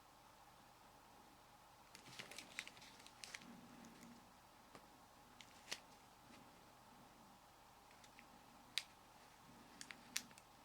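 Near silence with faint clicks of a Nokia 6280 mobile phone's keys being pressed and the handset being handled. There is a quick cluster of clicks about two seconds in, then single clicks spaced a few seconds apart, two of them close together near the end.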